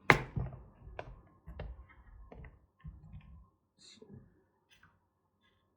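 Small parts box being put away on a workbench: a sharp click, then scattered lighter clicks and soft knocks over a few seconds.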